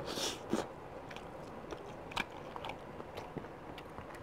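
A person chewing and biting a fried chicken wing close to the microphone, with scattered small crunches and clicks.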